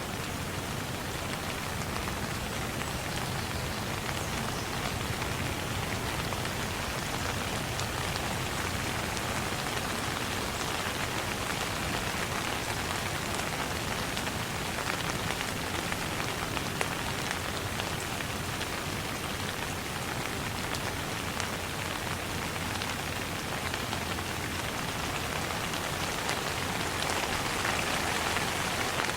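Steady rain falling, a continuous hiss with many individual drops pattering on a surface.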